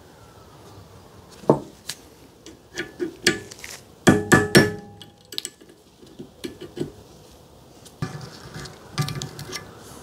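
Sharp metal clanks and clicks from a rusty steel ATV A-arm being handled and shifted in a bench vise. The loudest cluster comes about four seconds in, with a brief metallic ring.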